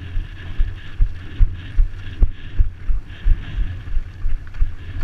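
Low, fairly regular thumps, about two or three a second, with wind on the microphone, as the flooded Yamaha YZ125 two-stroke is pushed and rolled to bump-start it without yet firing.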